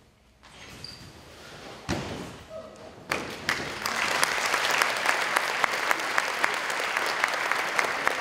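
A single thump about two seconds in, then a hall audience breaks into applause about three seconds in, steady clapping that keeps up.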